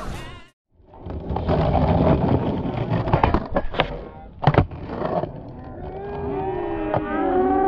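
Skateboard wheels rolling on concrete with clacks from the board, and a sharp snap of a trick about four and a half seconds in. From about six seconds, several overlapping wavering calls slide up and down in pitch.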